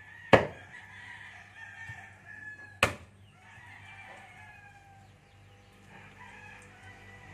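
Meat cleaver chopping raw pork, two sharp chops, one just after the start and one about three seconds in. A rooster crows in the background.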